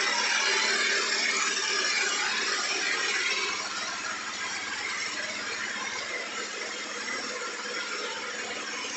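Husqvarna Vitpilen 250's single-cylinder engine idling steadily with a busy mechanical rattle while warming up after a cold start. The sound dips slightly in level about three and a half seconds in.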